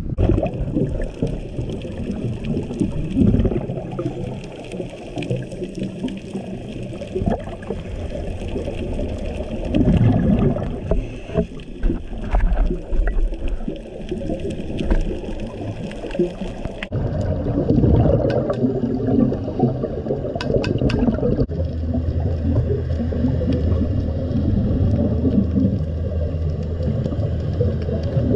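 Underwater recording of a scuba diver breathing through an Atomic Aquatics B2 regulator, with repeated bursts of exhaled bubbles over muffled water noise. In the last few seconds a steady low hum runs underneath.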